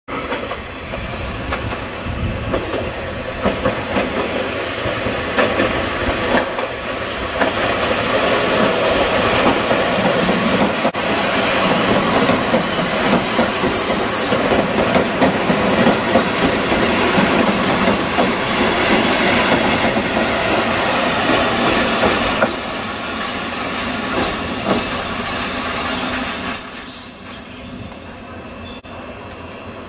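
JR Shikoku KiHa 58 and KiHa 65 diesel railcars running into a station and past close by, with the noise of the wheels on the rails building up and staying loud before easing off. A high brake squeal rings near the end as the train draws to a stop.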